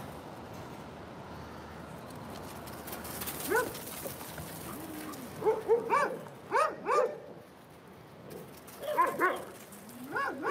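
Dogs barking in short runs: a single bark about three and a half seconds in, a quick string of barks around six to seven seconds, and another string about nine seconds in, over a steady background hiss.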